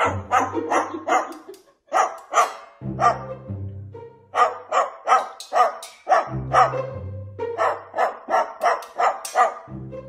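Music track with dog barks or yaps set in rhythm to the beat, several a second, over a bass line.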